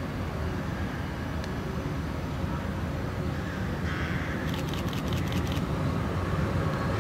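Tram approaching on grassed track, its low running rumble growing steadily louder; a quick run of sharp clicks sounds about four and a half seconds in.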